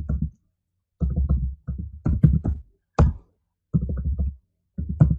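Computer keyboard typing: loud clacking keystrokes in several short bursts.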